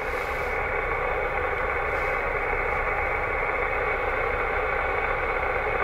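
Steady hiss of a 2 m VHF transceiver's receiver with no station coming through, heard through its speaker, as the dial is tuned across the band.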